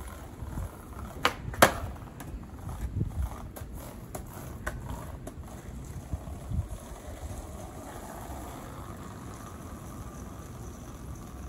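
Skateboard on pavement: two sharp clacks of the board about a second and a half in, then a scatter of smaller clacks and knocks. After that comes the steady low rumble of the wheels rolling along the path as the skater rides off.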